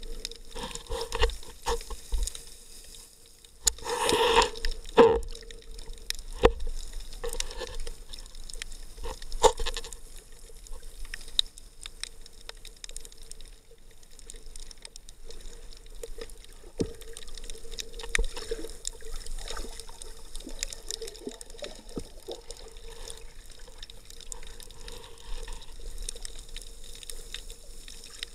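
Underwater sound picked up through an action camera's waterproof housing: muffled water movement with scattered clicks and knocks, and a louder rush of water about four seconds in.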